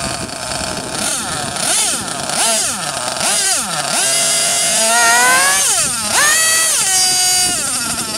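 A .28 nitro RC buggy engine, a two-stroke glow engine, running on the bench out of its chassis. Its revs rise and fall several times, then climb and hold high for about a second before dropping back near the end.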